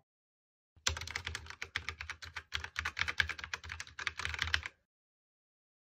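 Computer keyboard typing: a quick run of keystrokes starting about a second in and stopping after about four seconds.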